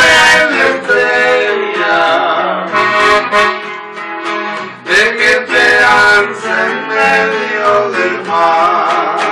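Gabbanelli accordion playing a running norteño melody, with an electric guitar plucking and strumming the accompaniment.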